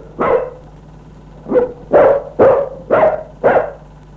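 A dog barking: one bark, a pause of about a second, then five quick barks about half a second apart.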